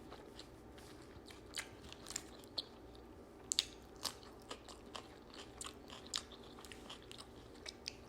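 Close-miked chewing and biting of a toasted steak and cheese sub: irregular sharp mouth clicks and crunches, the loudest about three and a half seconds in.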